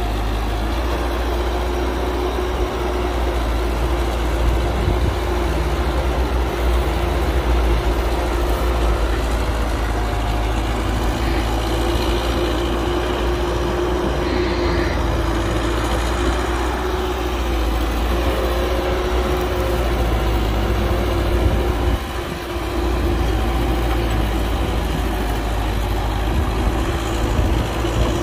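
Heavy diesel engine of construction machinery running steadily at a constant pitch, with a brief drop in level about 22 seconds in.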